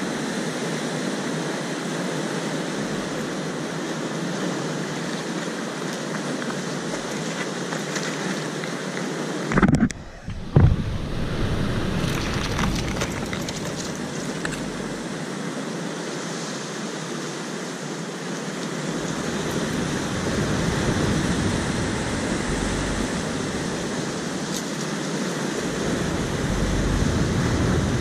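Sea surf breaking and washing over rocks, a steady rushing hiss, with wind rumbling on the microphone at times. Two loud thumps about ten seconds in.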